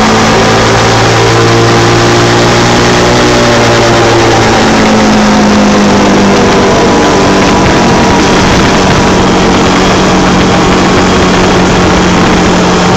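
Three-wheeler ATV engine running steadily under way, over a steady rushing noise. About four seconds in, the engine note steps down a little, then sinks slowly.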